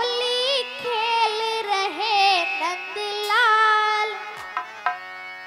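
A girl singing a wordless, ornamented opening phrase of a devotional Holi song over a steady held drone. About four and a half seconds in the voice stops and hand-drum strokes begin.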